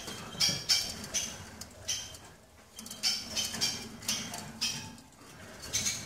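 Caged finches chirping: short high calls, two or three a second, with a brief lull in the middle.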